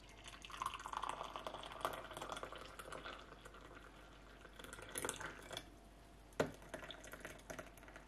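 Tea poured in a thin stream from a stainless steel teapot into a glass, splashing as the glass fills, in a long run and then shorter ones. A single sharp knock about six seconds in.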